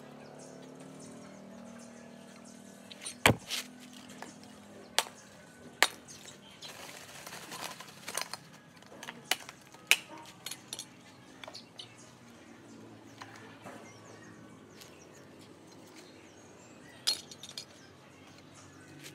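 Lumps of charcoal clinking and knocking together as they are broken apart and dropped onto wood kindling in a clay charcoal stove. A dozen or so sharp, separate clinks, the loudest about three seconds in.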